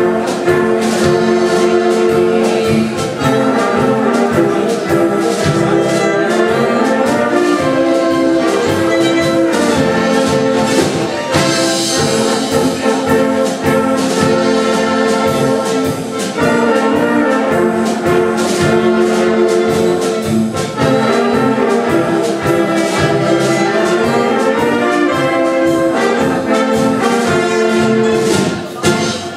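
Egerland-style brass band playing an instrumental polka passage, with tuba, trumpets and trombones over a steady beat.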